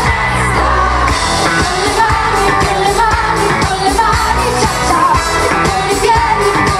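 Live pop band playing a song with a singer over a steady drum beat, guitars and keyboards.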